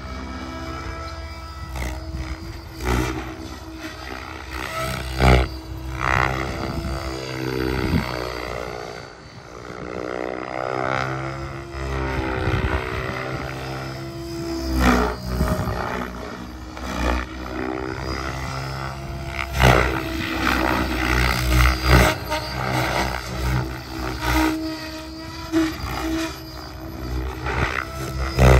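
Tron 7.0 radio-controlled helicopter in aerobatic flight: the rotor blades and motor whine and swish in loud swells, their pitch gliding up and down as it swoops back and forth.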